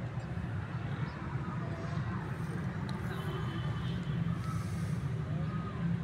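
Steady low rumble of outdoor background noise, with a few faint short chirps over it.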